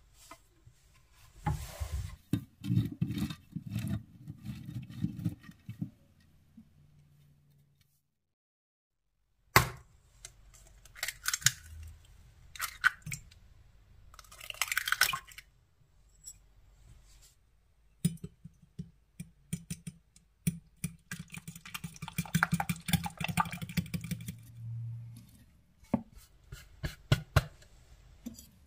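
Cheese grated on the fine side of a stainless steel box grater in rhythmic strokes. Then eggs are cracked into a glass baking dish and beaten with a fork, the tines clicking rapidly against the glass.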